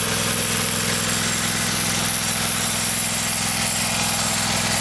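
Riding lawn mower's small engine running steadily at low speed as the mower drives slowly past close by.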